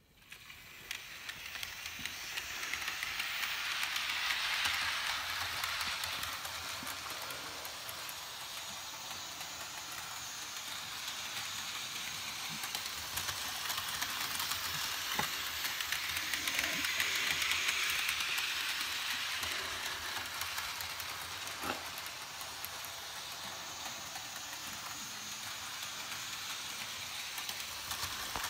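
Märklin BR 74 H0 model tank locomotive and its freight cars running on Märklin M-Track metal track: a steady hiss and rattle of motor and wheels that builds over the first few seconds as the train gets going, swells twice, and carries a few sharp clicks.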